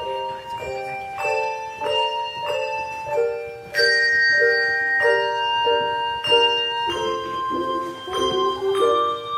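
Handbell choir playing a tune: chords of several bells struck together in a steady beat, about three every two seconds, each chord ringing on into the next.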